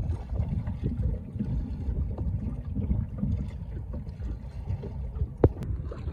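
Wind rumbling on the microphone aboard a small boat on a river, with one sharp knock about five and a half seconds in.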